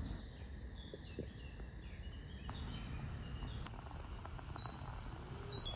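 Outdoor ambience: a steady low rumble with a bird giving short high chirps now and then.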